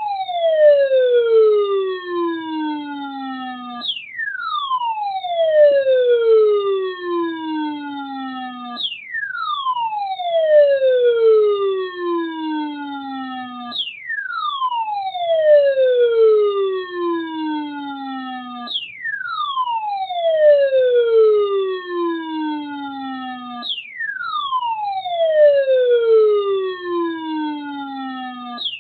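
Electronic siren-style alarm of a weather alert radio sounding for a new severe thunderstorm warning. Each cycle is a pitched glide that falls from high to low over about five seconds, then cuts off sharply and starts again at the top, about six times over.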